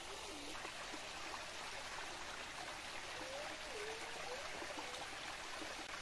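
Small forest waterfall spilling into a rocky stream pool: a steady rush and trickle of water. A faint wavering tone comes in about halfway through.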